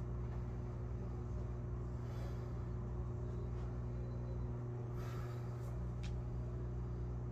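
Steady low electrical hum in a small room, with a few faint soft shuffles of footsteps in socks on carpet.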